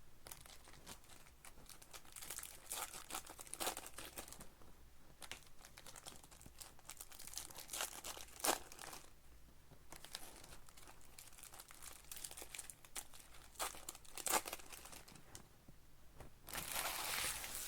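Plastic and foil trading-card wrappers crinkling and tearing as card packs are handled and ripped open, with scattered light clicks and a louder run of crinkling near the end.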